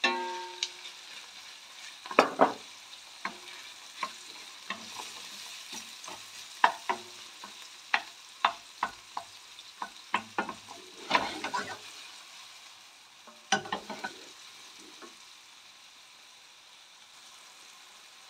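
Sliced mushrooms and chopped shallots frying in butter and olive oil in a stainless steel frying pan: a soft sizzle under repeated clicks and scrapes of a wooden spoon stirring against the pan. The sizzle grows fainter near the end.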